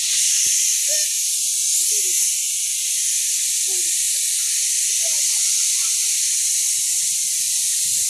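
A steady, loud hiss fills the sound, with a few faint, brief voice calls rising and falling now and then.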